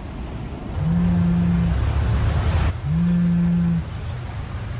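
DJ sound effects in a sonidero mix: a low horn-like electronic blast that swoops up into one steady note, held about a second and repeated identically about every two seconds. Under the first blast a rising whoosh builds and cuts off suddenly.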